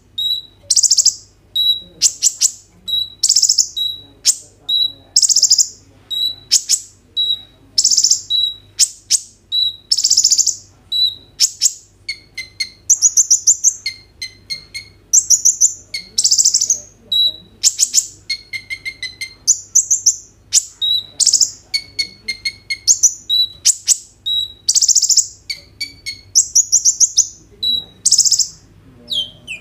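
A male kolibri ninja (purple-throated sunbird) singing hard: a loud, high song of short phrases about once a second, each a clipped note followed by a fast rattling trill, with lower notes mixed in from about twelve seconds in.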